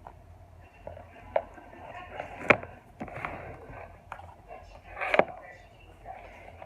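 Slime being handled, with a few sharp clicks or pops: one about a second and a half in, a louder one about two and a half seconds in, and another just after five seconds.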